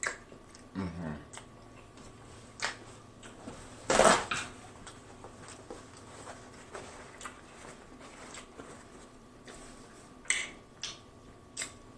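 Close-up mouth sounds of a person eating boiled shrimp in sauce: chewing and lip smacking, with scattered wet clicks and one louder smack about four seconds in.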